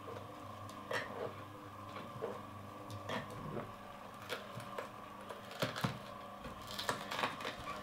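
Horizontal slow juicer (Solo Star 4) running with a steady motor hum, with irregular crunches and clicks as carrot pieces pushed down the chute with a plunger are crushed by the slow-turning auger; a few louder cracks come about six seconds in.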